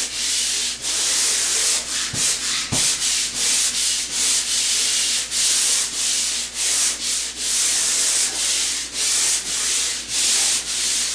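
Pole sander with 100-grit sandpaper on a swivel head rubbing back and forth across a drywall ceiling: a steady series of hissing rasps, about two strokes a second.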